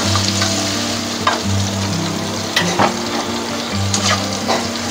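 Hand-ground red chili and shallot spice paste sizzling as it fries in oil in a pan, stirred with a spatula that scrapes against the pan several times.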